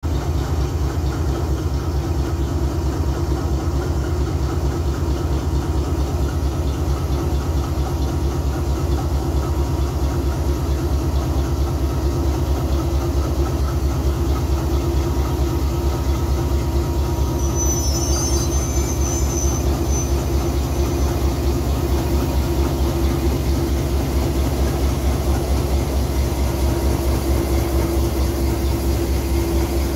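Twin diesel-electric locomotives, the lead one an RGE-24, passing slowly at close range: heavy diesel engines running with a fast, steady low throb and hum. A faint high squeal sounds briefly about two-thirds of the way through.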